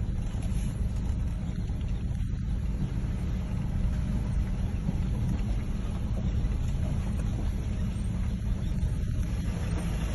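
A vehicle on the move, a steady low rumble.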